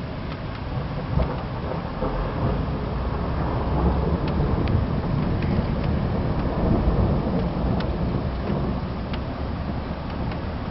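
Rolling thunder rumbling low and deep, swelling over several seconds and then easing off, with scattered faint ticks over it.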